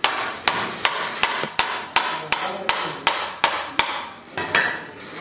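A metal dough scraper chopping through a log of cookie dough and striking the granite counter. About a dozen sharp, even taps come at roughly three a second, then two more after a short pause.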